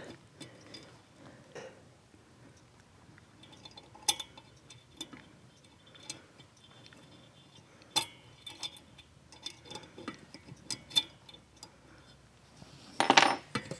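Small metal clicks and clinks from valve-keeper and valve-spring-compressor work on a motorcycle cylinder head, as the keepers are seated on a valve stem. The clicks are sparse and sharp, a few seconds apart, with a louder brief sound near the end.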